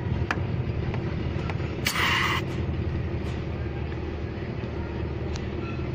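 Tata 407 truck engine idling steadily. About two seconds in comes a short hiss of air as the vacuum hose with its check valve is pulled off the brake booster, with a few light clicks from the fitting.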